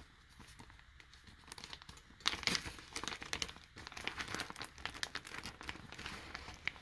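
Plastic zip-lock bag being pulled open and handled, crinkling. It is faint at first, then louder and denser from about two seconds in.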